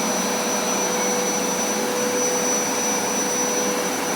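Hoover SmartWash Plus carpet cleaner running steadily: an even motor and suction noise with a steady whine.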